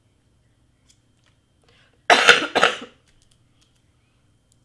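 A woman coughs twice in quick succession, about two seconds in.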